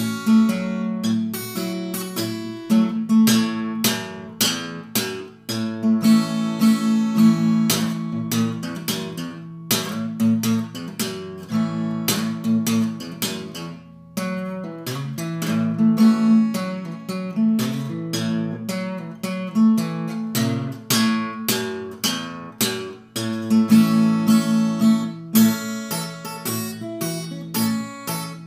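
Acoustic guitar fingerpicked in a country-blues style, in Drop G tuning with a capo at the second fret: steady plucked bass notes under picked melody notes on the treble strings, with no singing.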